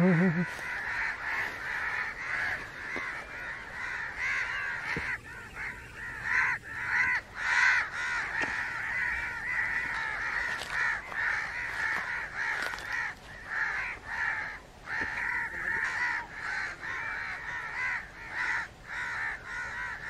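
A flock of crows cawing continuously, many calls overlapping into a steady din.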